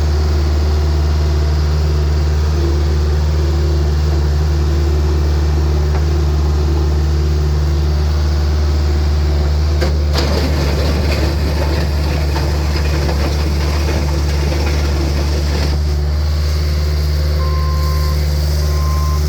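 Caterpillar 236B skid steer's four-cylinder Caterpillar diesel engine running steadily. About halfway through, a rattling noise joins in for about six seconds. Near the end, a back-up alarm beeps.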